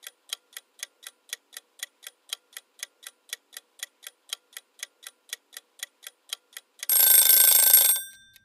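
Quiz countdown-timer sound effect: clock ticking evenly, about four ticks a second, then near the end a loud ring lasting about a second that dies away, marking time up.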